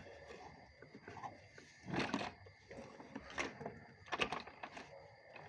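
Handling noises on a plastic shop vacuum being cleaned: irregular light knocks and a few brief scrubbing or wiping sounds.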